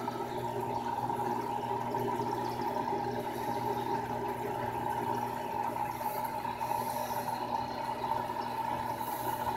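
Aquarium aeration running: a steady hum from the air pump with water bubbling in the tank.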